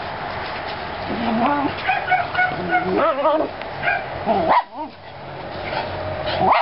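Dogs at play giving a string of short, high whines and yips, starting about a second and a half in, with a wavering whine near the middle.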